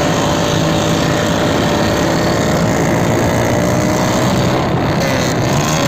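Motorcycle engines running steadily at speed, with a dense rush of road and wind noise.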